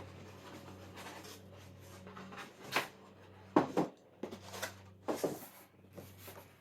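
Cardboard box and packaging being handled as a cutting machine is unpacked: a string of rustles and scrapes, the sharpest a little past the middle, over a steady low hum.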